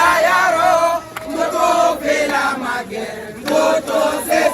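A group of men chanting and singing together in short phrases.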